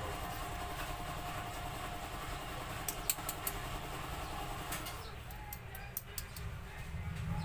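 Knife filleting a yellowfin tuna on a plastic cutting board: a few light clicks and ticks of the blade against bone and board, in a cluster about three seconds in and another around five to six seconds, over a steady low background hum.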